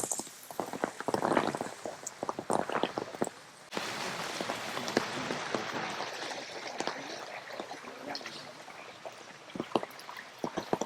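Water dripping and tapping in scattered sharp drops, then about four seconds in a steady rush of falling water starts abruptly and runs on.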